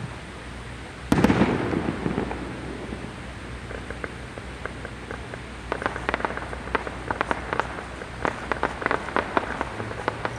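Fireworks: a single loud aerial shell burst about a second in, rumbling away, then from about halfway through a rapid run of sharp crackling pops from crackle effects.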